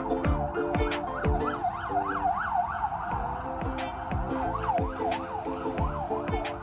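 Upbeat background music with a steady beat of low thumps about twice a second and held chords, topped by a synth line that slides rapidly up and down like a wailing siren.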